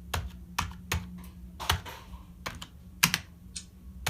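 Keys of a Cosmic Byte CB-GK-02 gaming keyboard being pressed one at a time in an irregular run of sharp clicks, a few a second.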